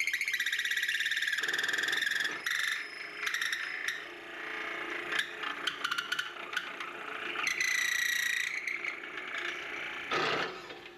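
A 12 mm drill bit in the lathe's tailstock chuck boring into a spinning purpleheart pen blank. The bit gives off a high squealing tone with a fast pulsing chatter. It is loudest in the first two seconds and again about eight seconds in, with scattered clicks.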